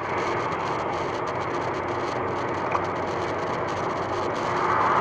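Steady engine and road noise of a car driving, growing louder near the end.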